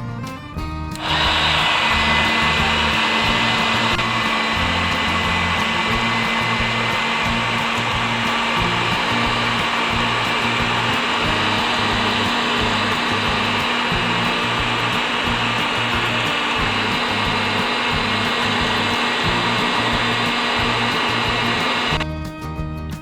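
Homemade battery-powered mini vacuum cleaner, its small motor spinning a salvaged hair-dryer fan blade. It switches on about a second in, runs steadily with a rushing of air and a thin whine, then stops about a second before the end.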